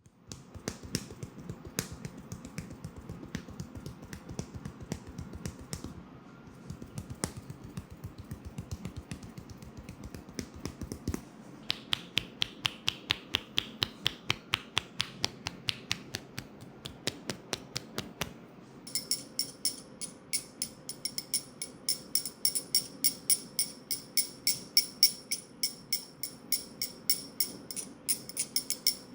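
Quick rhythmic hand-massage taps and clicks on the head. For about the first eleven seconds they are dull low pats. Sharper clicks follow, and from about two-thirds of the way in the clicks carry a faint metallic ring.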